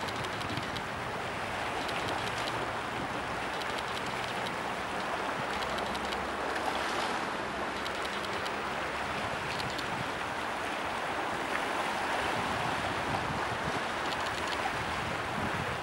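Steady rush of choppy water at a river mouth, small waves washing against the concrete breakwater blocks, holding an even level throughout.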